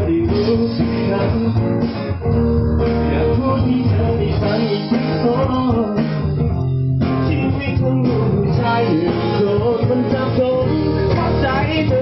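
A small band playing a song live: acoustic guitar with a man singing into a microphone.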